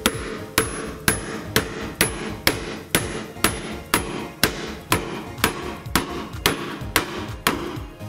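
Hammer blows on a steel bearing driver, pressing a new drum bearing into the hub of a washing machine's plastic tub: even strikes about two a second, each with a short metallic ring. To the repairer, the sound says the bearing went in without damage or defects.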